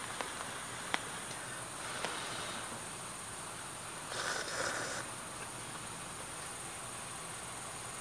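Insects trilling steadily on one high pitch through the night air. Near the start there are a few small sharp clicks, and about four seconds in a brief rustle.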